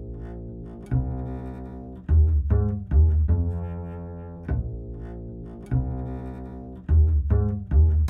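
Opening title music: a double bass playing low plucked notes, each struck sharply and left to ring and fade, with a few quick notes bunched together twice.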